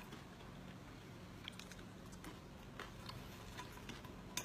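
A person chewing food, faint scattered mouth clicks with one sharper click near the end.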